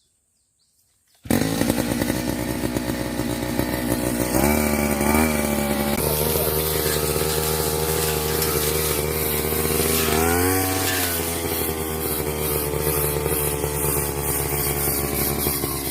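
Brush cutter's small engine, silent for about a second and then running hard, its revs rising briefly about four seconds in and again about ten seconds in.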